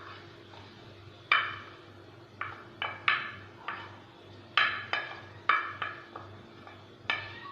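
Utensil clinking against a dish about ten times at an uneven pace, each clink short and ringing, over a faint steady hum.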